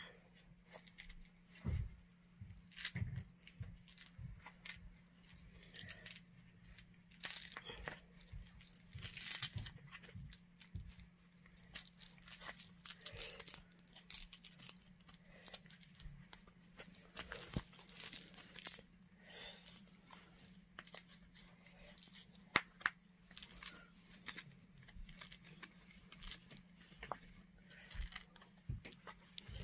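Faint, irregular rustling, short rasps and clicks as hands work a fursuit body's zipper closed and handle the faux fur around it, over a faint steady low hum.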